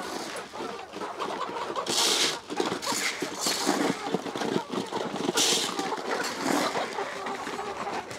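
Chicken feed poured from a plastic bucket onto the coop floor, in two short hissing rushes about two and five seconds in, while a crowded flock of chickens pecks and scratches with many small taps and scuffles.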